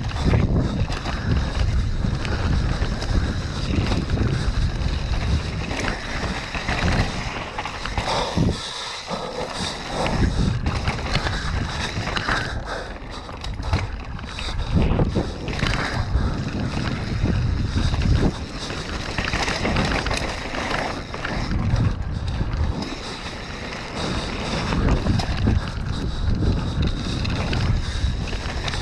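Wind rushing over the microphone of a camera riding on a mountain bike at speed, over the rumble and rattle of the tyres and frame on a rough dirt trail. The noise dips briefly about nine seconds in.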